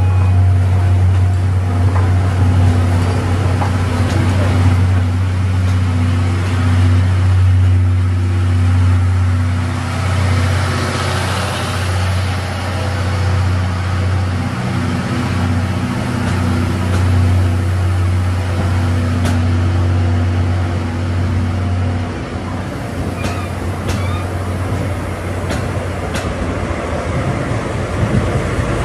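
Steam-hauled passenger train rolling slowly past: blue 14-series coaches go by with a steady low hum and a few light wheel clicks. Near the end the noise turns rougher as the trailing DE10 diesel locomotive draws level.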